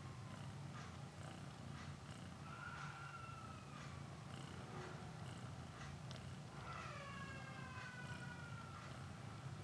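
Mother cat purring steadily while nursing a newborn kitten: a low, even rumble.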